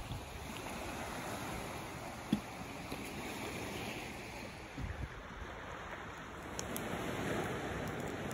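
Steady wash of small waves on a sandy beach with wind on the microphone and a few thumps, the loudest about two seconds in. Near the end, scattered sharp crackles from a wood campfire.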